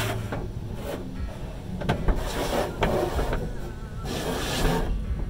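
Automatic tunnel car wash heard from inside the car: water spray hissing in surges against the windshield over the low rumble of the wash machinery, with a few soft thuds about two and three seconds in as the cloth strips hit the car.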